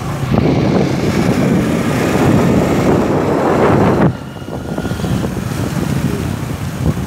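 Vehicle road noise mixed with wind rushing over the microphone while moving along a dirt road, cutting off abruptly about four seconds in; a quieter steady outdoor noise follows.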